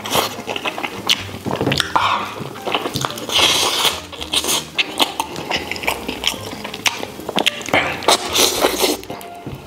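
Close-miked eating of a braised pig tail: wet biting, sucking the meat off the bone and chewing, with many small smacking clicks and two longer slurps, about a third of the way in and near the end.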